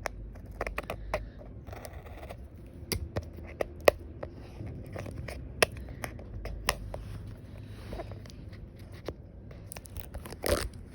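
Plastic shrink wrap being torn and peeled off an AirPods box: crinkling and tearing with many scattered sharp clicks and scrapes.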